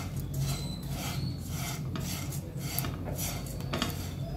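Silicone spatula stirring dry flattened rice flakes with almonds and cashews in a nonstick pan: the flakes rustle and scrape against the pan in repeated strokes as they are dry-roasted.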